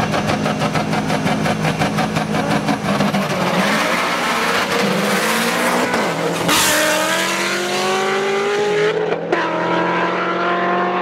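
Two tuned race cars, a turbocharged Subaru Impreza WRX STI and a Corvette Z06, launch in a street race. The engines are held high with a rapid, even stutter, then run up in pitch as the cars pull away. One passes close and loud about six and a half seconds in, and a gear change comes near nine seconds.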